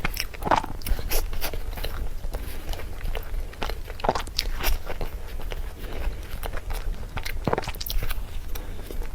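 A person chewing and biting cream cake, with many short, irregular clicks from the mouth.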